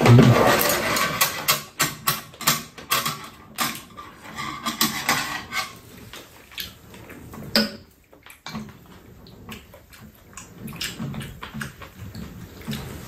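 Spoons and chopsticks clicking and scraping against bowls as two people eat rice-cake soup, with a loud noisy burst at the very start. The clicks come thick and fast for the first half, then thin out.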